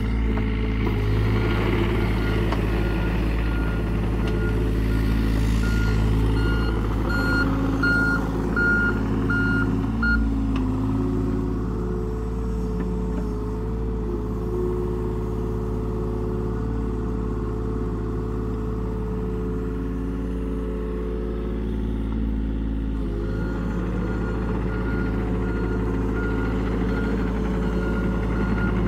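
John Deere 35G compact excavator's diesel engine running steadily as it digs and moves, with its engine note shifting slightly partway through. The machine's reversing alarm beeps in two stretches, about a quarter of the way in for a few seconds and again over the last five seconds.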